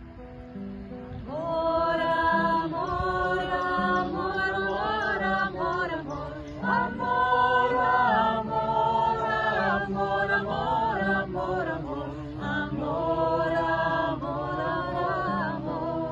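A small group of men and women singing a slow chant together to a strummed acoustic guitar, in long phrases of held notes with short breaks between them.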